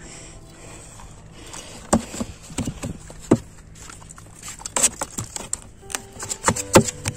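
Sharp knocks and slaps as a freshly caught fish is put into a styrofoam box, thudding against the foam among the other fish. They come in an uneven run, thickest in the last few seconds.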